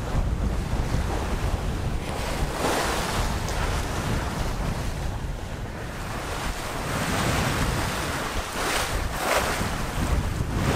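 Water rushing and splashing along the hull of a Tayana 42 sailing yacht under way, with heavy wind buffeting on the microphone. The rush of water swells louder about three seconds in and twice more near the end.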